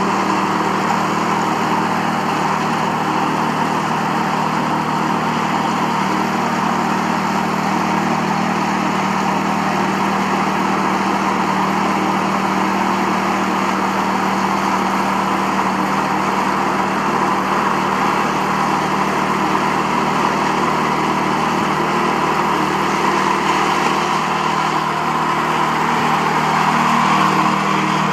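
Walk-behind sweeper's 6.5 hp single-cylinder petrol engine running steadily under load, driving the rotating bristle brush that sweeps loose soil across concrete, with a steady hiss over the engine note.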